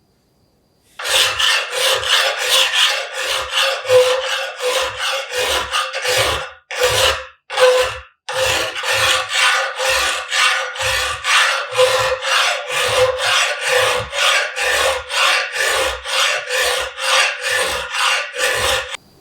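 Hand file stroking back and forth across the steel of a pair of pincers, about two strokes a second with a light metallic ring on each stroke. There is a short pause with two single strokes partway through, then steady filing resumes and stops near the end.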